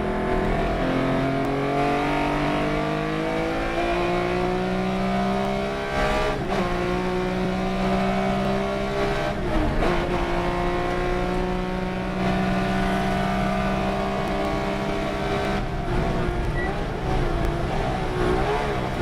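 Race car engine under hard load on a circuit, its pitch climbing steadily with brief breaks about six and a half and nine and a half seconds in. It then eases off and falls in pitch near the end.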